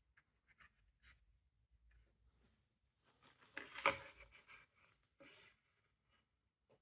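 Plastic parts of a smoke detector being handled: light clicks and rubs, with a louder cluster of scraping and clattering about halfway through.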